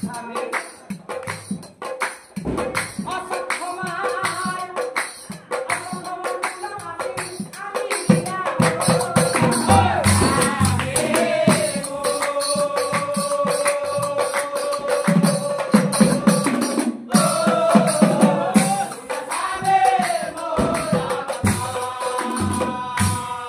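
Nagara naam devotional group singing: voices chanting in long held notes over rapid, steady clashing of small hand cymbals (taal) and drum beats. The singing grows louder about a third of the way in.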